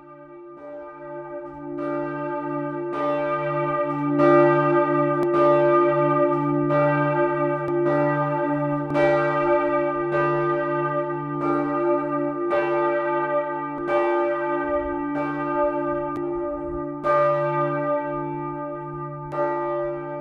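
Church bells ringing for the Sunday service, several bells striking about once a second over a long, steady hum, fading in over the first few seconds.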